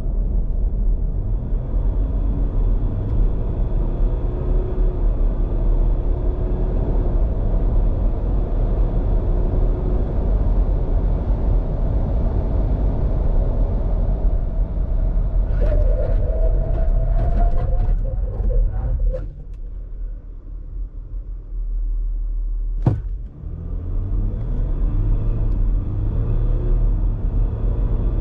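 Cabin sound of a 3.0-litre turbo-diesel V6 pulling under acceleration, a steady rumble of engine and road noise. About two-thirds through it drops quieter for a few seconds, a sharp knock sounds, then the engine picks up again with a rising pitch as it revs harder under full acceleration.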